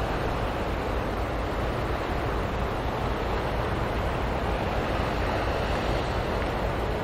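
Wind rushing steadily over the microphone, with a deep rumble underneath and no distinct events.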